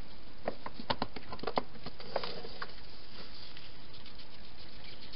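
Wild hedgehog moving in and out of a clear plastic feeding box: a quick run of sharp taps and scrapes about half a second to two and a half seconds in, then fainter scattered ticks as it moves off.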